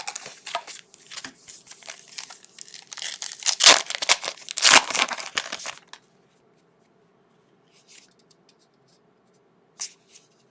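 Foil trading-card pack wrapper being torn open and crinkled, loudest about four seconds in. It stops suddenly about six seconds in, and a couple of faint taps from handling the cards follow.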